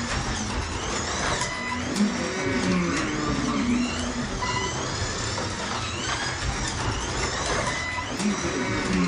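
1/24 scale Ford GT40 slot car's small electric motor whining round the track on silicone tires, the whine rising and falling in pitch as it speeds down the straights and slows for the corners. A few short beeps are heard along with it.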